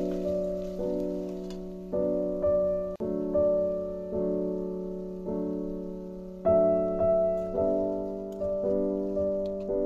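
Background piano music: slow chords struck about once a second, each note sustaining and fading before the next.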